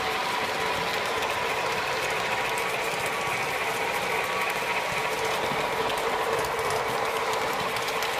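O-scale model steam locomotive running close by on its track: a steady whine from its motor and gears over a fast rattle of small clicks from the wheels and running gear.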